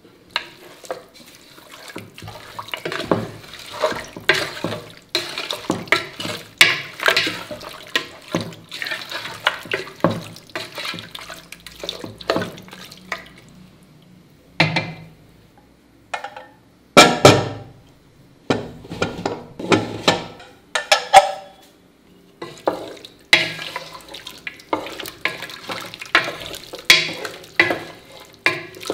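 A spatula scraping and knocking against the metal sides of a pressure cooker pot in irregular strokes as raw mutton pieces are tossed with oil and spice pastes, with wet squishing of the meat. Later, after a short pause, the same stirring goes on through cooked, saucy mutton curry.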